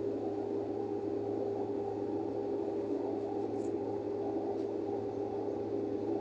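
Steady background hiss with a low hum underneath, and two faint ticks a second apart near the middle.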